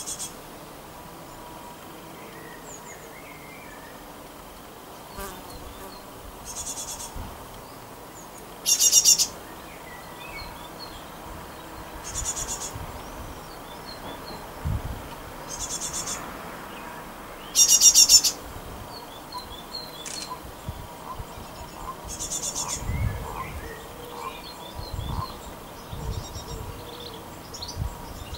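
Great tits calling: six short, high, rapidly pulsed bursts a few seconds apart, the second and fifth much louder than the rest, with faint chirps in between.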